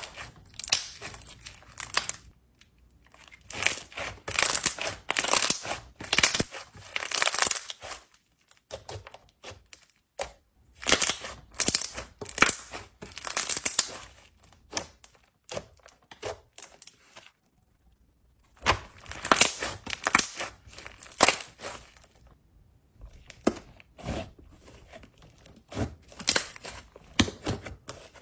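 Slime with small beads mixed in being squeezed, stretched and pulled by hand, crackling and crinkling in bursts of a second or two with short pauses between.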